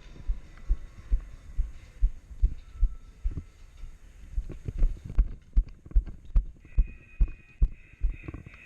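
Regular low thuds about twice a second: footsteps carried through a helmet-mounted camera as the wearer walks.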